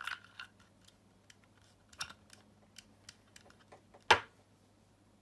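Plastic cable gland being handled and its outer nut loosely screwed on: scattered light plastic clicks and taps, with one sharp louder click about four seconds in.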